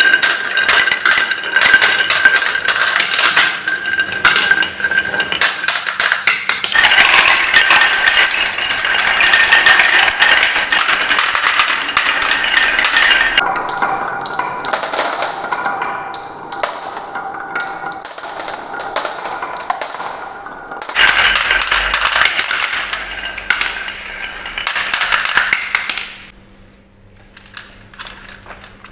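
Many marbles rolling and clattering down a wooden marble run: a dense, continuous stream of clicks and rattles, changing abruptly several times as different stretches are cut together. It thins out and goes quieter a few seconds before the end.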